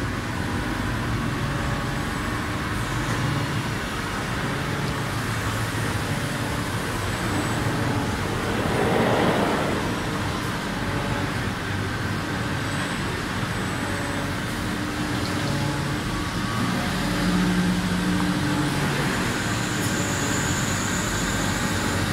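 Steady hum and whir of running industrial machinery in a machine shop, with several low steady tones that come and go, and a brief rush of noise about nine seconds in.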